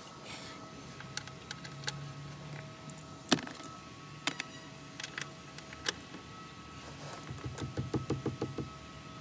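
Hand tools knocking against the dashboard's metal and plastic, one sharp knock the loudest, then a quick run of socket-ratchet clicks near the end as a bolt behind the glovebox is worked.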